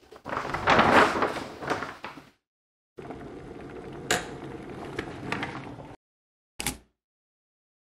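A loud, noisy burst lasting about two seconds, then an electric kettle heating with a steady, even hiss for about three seconds, with a sharp click partway through and a brief click-like burst near the end.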